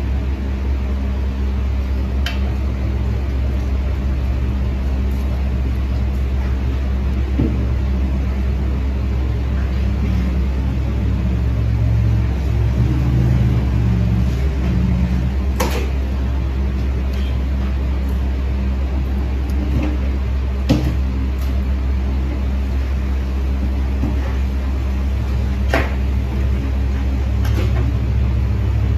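Electric pedicure drill's motor running with a steady low hum, with a few sharp clicks of metal instruments.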